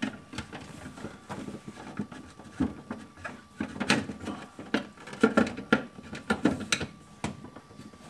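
Irregular knocks, taps and light rattles of a refrigerator freezer's back cover panel being worked into place by hand, with a few louder knocks in the second half.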